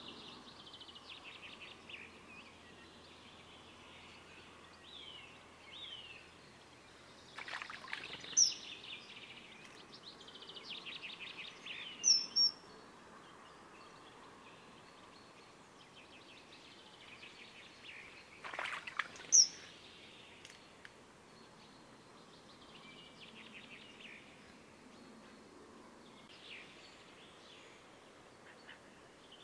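Common kingfisher calling: three shrill, piercing high whistles, each preceded by a quick run of sharp notes, over small songbirds singing softly in the background.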